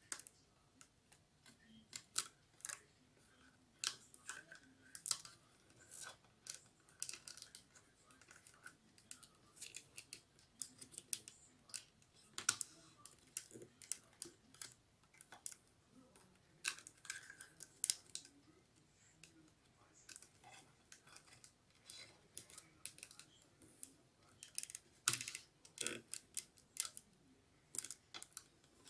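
Rolled newspaper tubes rubbing and clicking against each other as a paper strand is woven in and out of a basket's upright stakes and pulled tight: a soft, irregular stream of light ticks and crackles.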